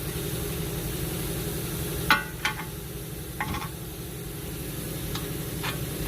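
Short metallic clinks and taps of tools and parts while the outer tie rod end is fitted into the steering knuckle: one loud clink about two seconds in, then several lighter ones. Under them runs a steady low mechanical hum.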